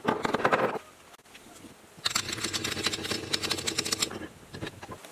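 A small hammer tapping rapidly on gasket paper laid over a metal flange, cutting out a gasket by tapping the paper against the metal edge. There are two runs of quick taps: the first stops just under a second in, and the second goes from about two seconds in to just past four.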